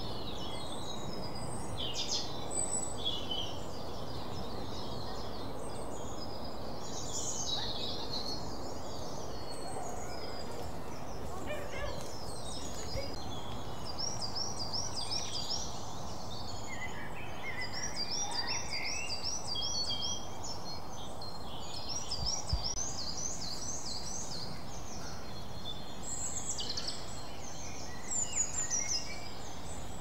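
Several woodland birds singing and calling over a steady low background noise, one of them repeating a quick phrase of high looping notes several times through the middle and later part.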